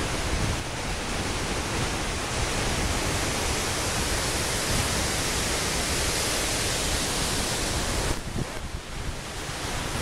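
Steady rushing of a large waterfall, with wind buffeting the microphone. It eases briefly near the end.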